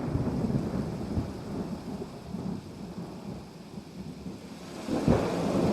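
Thunder rumbling over steady rain, with a louder swell of thunder about five seconds in.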